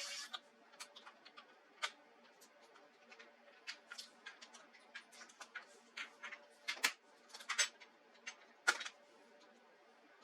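Irregular small clicks and taps from laptop parts being handled during disassembly, with a couple of sharper clicks near the end, over a faint steady hum.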